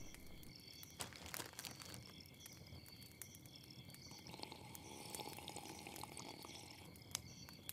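Quiet campfire ambience: a fire crackling with scattered sharp pops, over crickets chirping steadily.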